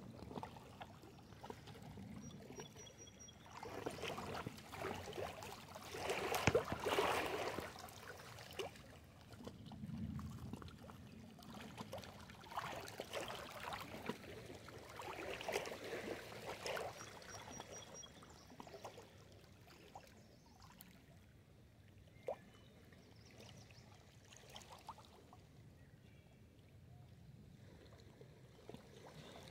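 Small lake waves lapping and splashing against shoreline rocks, coming in surges every few seconds, calmer over the last third.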